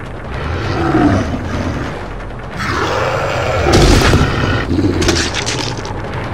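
Dubbed werewolf growls and snarls, a mix of animal recordings and a human voice, with a heavy impact sound effect about four seconds in.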